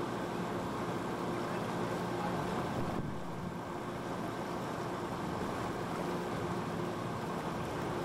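A ship's engine hums steadily under a rush of wind and water on open sea.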